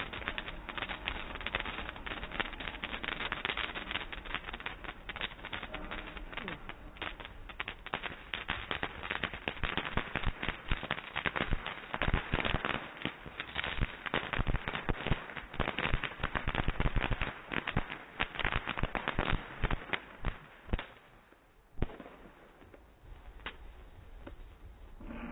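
Fireworks crackling and popping in a rapid, dense series of sharp cracks. The cracks are thickest in the middle, then thin out near the end with one last pop.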